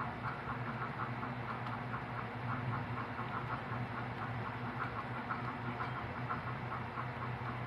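Rapid typing on a computer keyboard, about five or six keystrokes a second, over a steady low hum.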